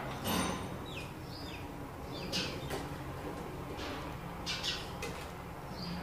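Sparrows chirping: scattered short chirps that slide downward in pitch, mixed with a few harsher, noisier calls, over a steady low hum.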